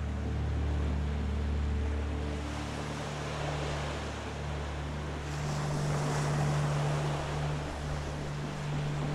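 Ambient film soundscape: a steady low drone of several held tones under a rushing, surf-like noise that swells about halfway through.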